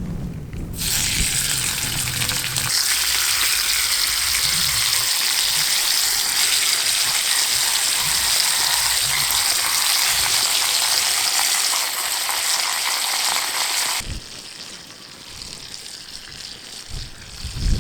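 Bacon sizzling and spitting in a cast iron pan on a twig-fired stove: a dense, crackling hiss that starts suddenly about a second in and cuts off abruptly near fourteen seconds. After it stops there is a quieter stretch with a few low thumps.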